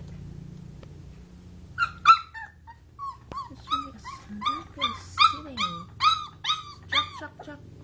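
Very young Labrador–golden retriever puppy whimpering: a run of about fifteen short, high, rising-and-falling whines, roughly two a second, starting about two seconds in.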